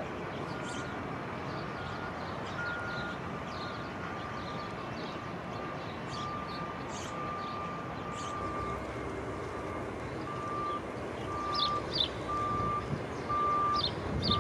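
A construction vehicle's reversing alarm beeping about once a second over steady outdoor background noise, with a few short high chirps.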